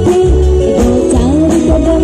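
Live band music: a woman singing a wavering melody into a microphone over electric guitar, bass guitar and a steady drum beat.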